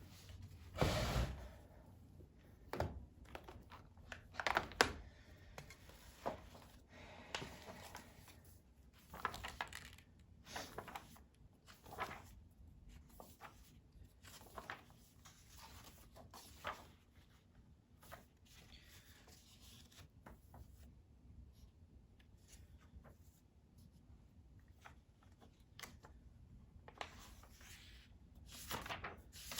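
Irregular short rustles, scrapes and light knocks of small objects being handled, some sounding like paper tearing or crumpling, with a quieter stretch in the middle.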